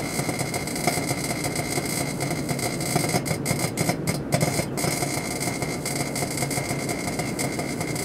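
Danby countertop microwave oven running, a steady hum and fan whir.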